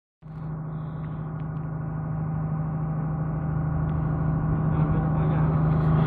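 Ship's machinery humming steadily, a low pitched drone with many overtones. It cuts in a moment after the start and grows slowly louder.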